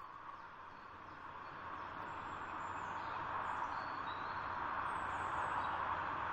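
Steady rushing wind noise fading in and growing louder, with a few faint, brief high bird chirps over it.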